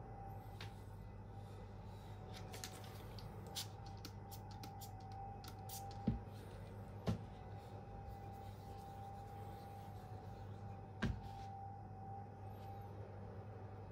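Spyderco Endura knife with a K390 blade being worked on a Venev F400 diamond sharpening stone: light, irregular clicks of blade on stone through the first half, then three dull knocks about six, seven and eleven seconds in, over a steady hum with a faint high whine.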